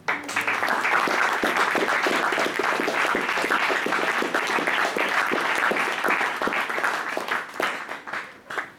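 Audience applauding, starting suddenly as the piece ends, a dense steady clapping that thins into scattered claps near the end before stopping.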